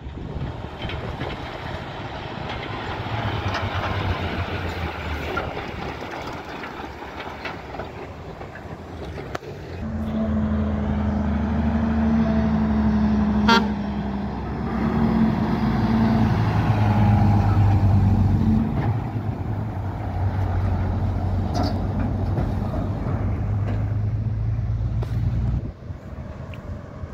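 Heavy diesel trucks driving past on a road, engines droning and loudest about midway. Over the middle stretch a truck horn sounds: one long blast, then several shorter ones. The sound drops off abruptly near the end.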